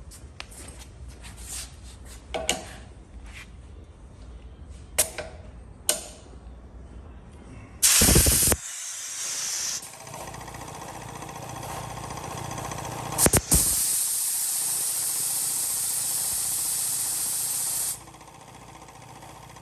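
Compressed air being let out of an Emglo wheelbarrow air compressor's tank: scattered clicks and knocks, then a short, very loud blast of air about eight seconds in, followed by a long steady hiss that stops abruptly near the end. The air is bled off to drop the tank pressure so the compressor switches back on.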